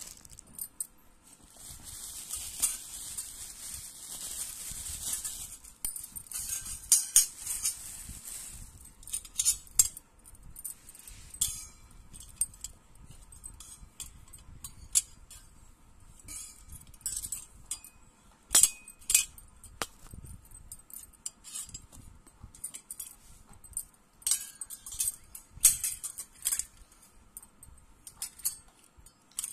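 Plastic wrapping crinkling as it comes off a stainless steel potato ricer, followed by many light metallic clinks and clatters as its perforated cup and lever handles are handled.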